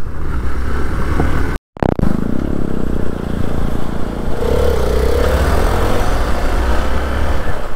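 Hero XPulse 200 motorcycle's single-cylinder engine running while riding, with a steady low rumble. The sound cuts out for a moment about a second and a half in, and a wavering higher tone rises and falls for a couple of seconds in the middle.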